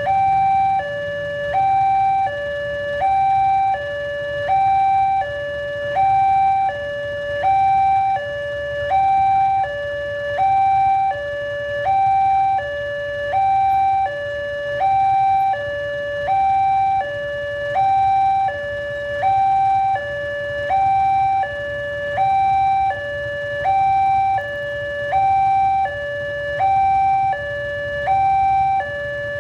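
Railway level-crossing warning alarm sounding an electronic two-tone hi-lo signal. A higher and a lower note alternate evenly, each lasting about three-quarters of a second, over a low rumble. It signals that a train is approaching the crossing.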